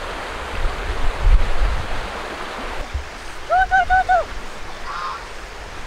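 Outdoor ambience: a steady rushing hiss with low rumbles about a second in, and a little past halfway an animal call of four quick, arched notes in a row.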